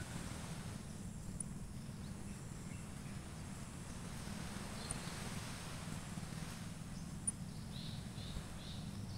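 Outdoor ambience: a steady low rumble, with a quick series of four or five short, high bird chirps near the end.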